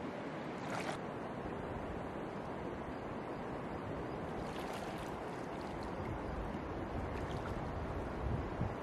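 Shallow river water flowing and lapping around a wader's legs, with brief small splashes as a hand dips into the water about a second in, around the middle and again later. Two low thumps near the end.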